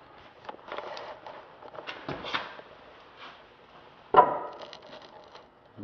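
Scattered faint knocks, clicks and rustles of someone moving about close under a car with a handheld camera, with one sharper knock about four seconds in.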